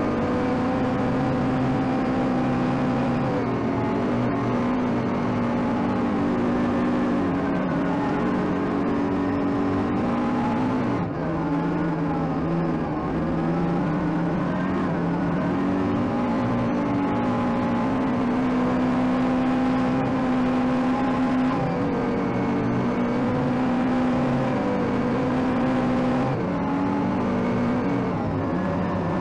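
2014 Yamaha Viking side-by-side running steadily under way on Camso X4S snow tracks, its engine note shifting up and down a little with the throttle.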